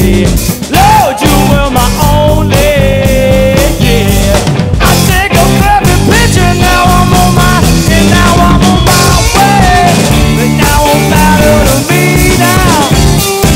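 Rock band playing live: electric guitars over bass and drums in a passage without words, a lead line bending up and down in pitch over a steady beat.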